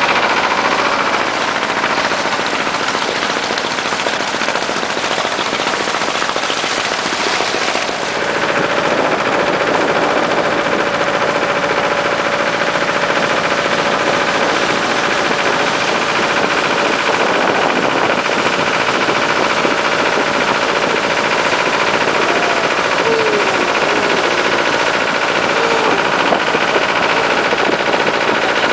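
Motorboat under way at speed, its engine running steadily beneath a dense, rapid rattling of wind and spray on the microphone.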